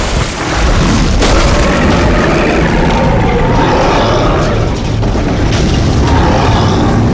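Movie sound-effects mix: loud, continuous deep rumbling and booms with a few sharp hits, under a faint dramatic score.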